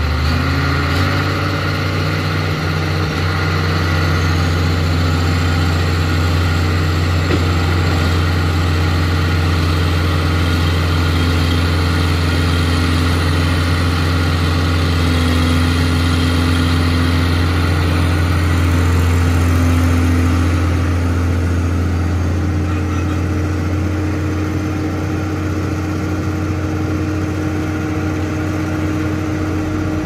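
Heavy diesel engine of a construction machine running steadily, a deep even drone. Some of the hiss above it eases off about two-thirds of the way through.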